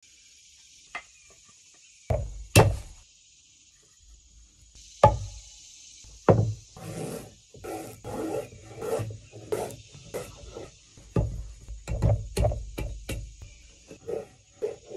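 A froe being struck with a wooden club to split wood: a few loud single knocks, then a steady run of shorter strokes about two a second as the split is worked along.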